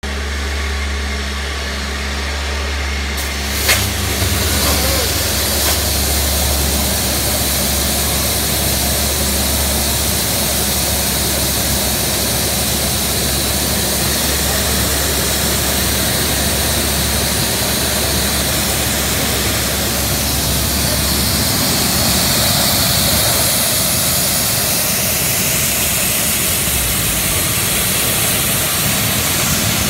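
Large stage smoke machine with a fan turbine, run at half power, switching on with a click about four seconds in and then blasting fog with a loud, steady rushing hiss. A low hum underneath drops away about two-thirds of the way through.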